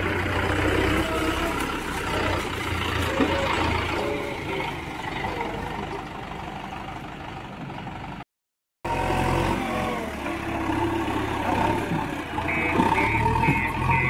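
Mahindra Yuvo 415 DI tractor's diesel engine running steadily as it pulls a loaded trolley. After a half-second break in the sound about eight seconds in, a JCB 3DX backhoe loader's diesel engine runs with its loader bucket raised.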